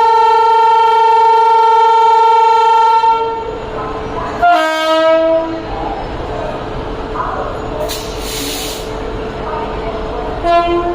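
Electric locomotive's air horn sounding a loud, long, steady blast that cuts off about three seconds in, then a second, lower-pitched blast lasting about a second, and a short toot near the end. Underneath, the departing train runs with a steady rumble, and a burst of hiss comes about eight seconds in.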